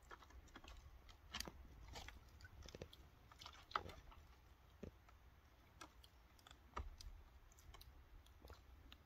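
A cat pawing at water in a shallow plastic tray: faint, irregular taps and small splashes, the sharpest about four seconds in.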